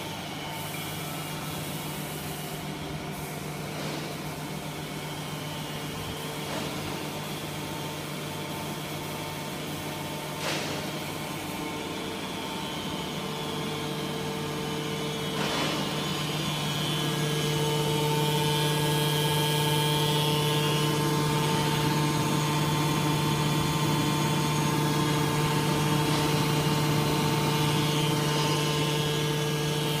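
Hydraulic power unit of a two-ram can baler running: the electric motor and hydraulic pump give a steady hum that grows louder a little past halfway through, with a couple of faint short knocks before that.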